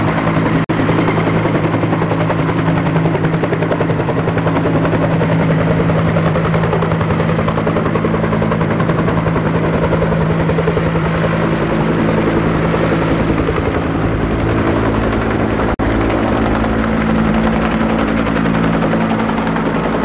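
Loud, steady motor drone with a fast, even beating pulse, the kind of sound a helicopter makes. It drops out for an instant twice, just under a second in and about sixteen seconds in.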